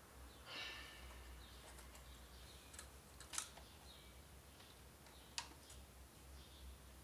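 Quiet handling of a screwdriver and the plastic parts of a Panasonic PT-AE700E projector during reassembly: a brief rustle near the start, a few faint ticks, and two sharp small clicks about three and a half and five and a half seconds in.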